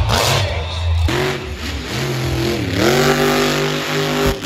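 Full-size monster truck engine revving loudly: its note dips in pitch and climbs back, then holds steady at high revs.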